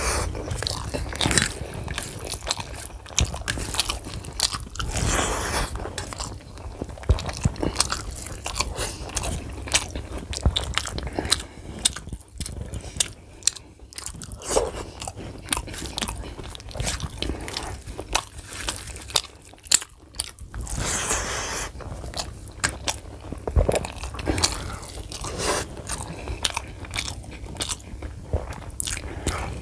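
Close-up chewing and biting sounds of a person eating rice with chicken liver curry by hand: many short wet clicks and crunches. Fingers mixing rice and curry in a steel plate and bowl add soft squishing.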